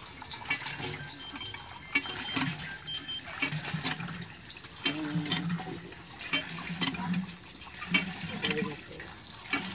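Hand-pumped tubewell: water gushing from the pump spout and splashing into a metal water pot, with a short knock at each stroke of the pump handle, about once or twice a second.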